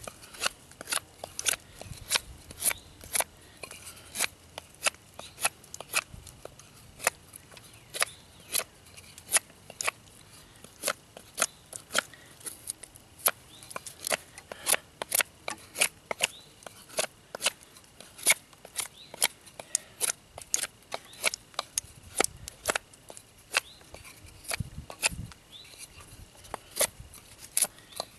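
Knife blade shaving wood in short, sharp strokes, about two a second, as a bow-drill spindle is carved down from a stick.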